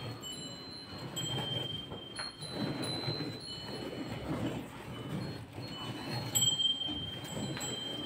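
Hand-milking a cow: milk squirting in streams into a steel bucket of frothy milk. Short, clear, high chime-like tones ring again and again at a few fixed pitches.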